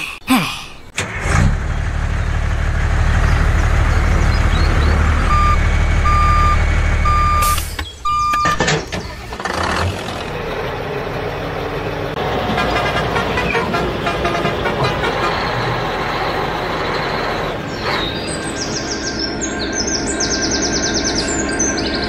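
Heavy truck diesel engine running steadily, with a reversing beeper sounding four times a little before the engine sound cuts off. After a short break a softer steady engine hum goes on, and birds chirp near the end.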